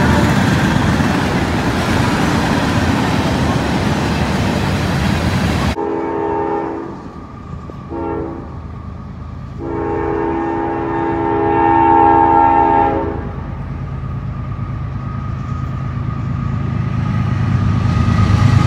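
Freight train cars passing close by with a steady rolling rumble and rattle. After a cut about six seconds in, a diesel locomotive's multi-note air horn sounds two short blasts and then one long one as the train approaches, and its rumble grows louder near the end.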